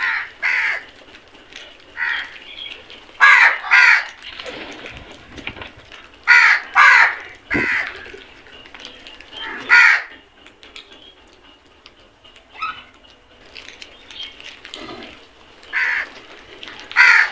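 Crows cawing, harsh calls mostly in quick pairs or threes, repeated at intervals of a second or more.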